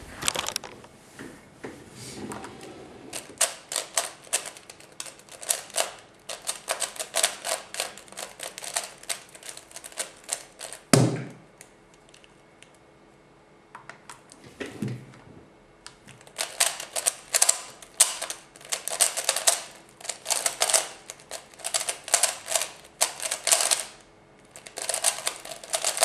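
F-II 3x3 speedcube being turned very fast: dense runs of plastic clicking as the layers snap round, in two long stretches. Between them are a few seconds' pause and two thumps, one about eleven seconds in and one about fifteen seconds in. The second stretch is a timed speedsolve.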